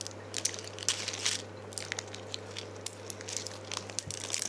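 Crinkling of plastic sweet packaging with scattered small clicks and rustles as it is handled and picked open by hand.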